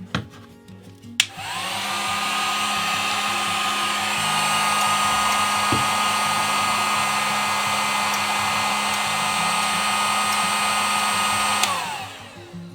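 Heat gun from Harbor Freight, on its low setting, switched on with a click about a second in. Its fan whines up to speed and blows steadily for about ten seconds, heating a plastic shrink-wrap band onto a bottle neck, then winds down as it is switched off near the end.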